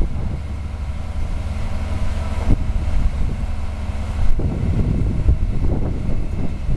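Mobile crane's engine running steadily during a lift, under heavy wind buffeting on the microphone, with a couple of faint knocks.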